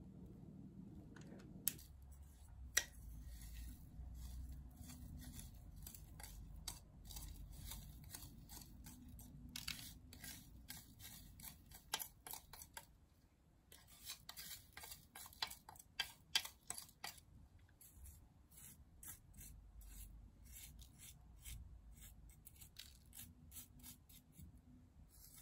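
Faint scraping and light irregular clicks of cake assembly. A spatula smooths cream inside a stainless steel cake ring, then dark cookie crumbs are poured in from a plastic measuring jug and spread with a wooden stick.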